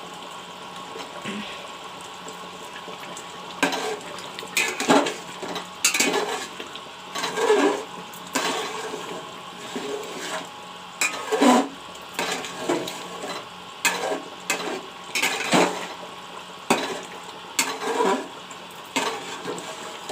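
A spoon clinking and scraping against a cooking pot in irregular strokes, starting a few seconds in, over a faint steady hum.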